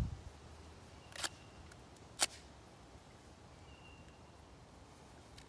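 Sand-fouled Glock 48 pistol being tried for firing: two sharp cracks about a second apart, the second the louder, after which the gun jams.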